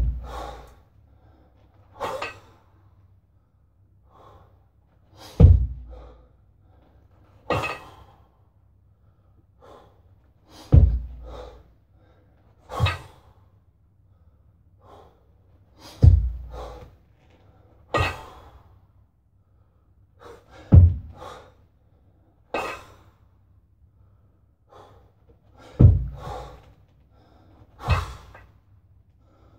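Double kettlebell long-cycle reps: a heavy thud about every five seconds as the lifter works the two kettlebells between chest and overhead, with a sharp, gasping exhale between the thuds.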